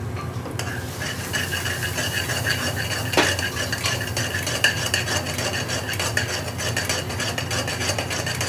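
Metal ladle scraping and clattering rapidly round an aluminium pan as spices are stirred into onions frying in oil, with a light sizzle, the bhuna stage of cooking out the masala. There is one louder knock of ladle on pan about three seconds in, over a steady low hum.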